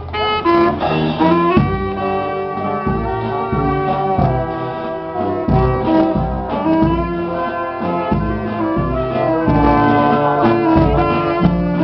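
Street brass band playing: sousaphones, trumpets, trombone and saxophone holding and shifting notes over a steady bass-drum beat, about two beats a second, that comes in about one and a half seconds in.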